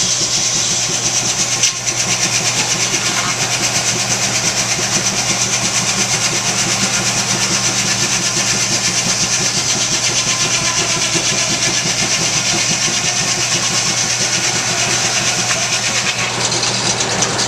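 Steam-powered sawmill running with a steady, rhythmic beat and a high hiss. About two seconds in, a brief break in the sound where the saw strikes a nail in the log.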